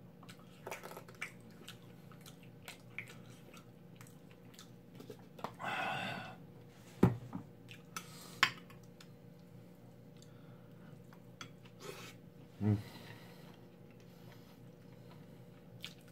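Eating sounds: metal chopsticks clicking against a plate and bowl, with chewing, over a faint steady hum. A short hissing sputter comes about six seconds in, and two sharp clicks about a second and a half apart follow it.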